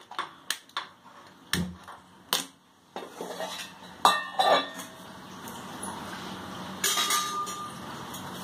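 Gas stove burner being lit: a few sharp clicks, then from about three seconds in a steady rush of the flame under the pan. Metal clinks against the pan come twice, about four seconds in and near the end.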